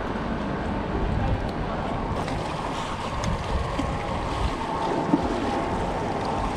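Wind buffeting the microphone over small waves lapping against shoreline rocks, a steady rushing noise with a few faint ticks after about two seconds.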